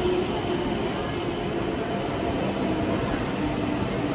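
W7-series Hokuriku Shinkansen train rolling slowly along the platform: a steady rumble and hiss of wheels and running gear, with a thin high steady whine over it.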